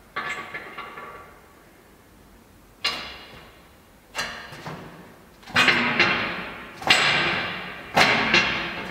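A series of sharp struck hits, each ringing out and dying away in the reverberant space. There are about six, coming closer together and louder toward the end.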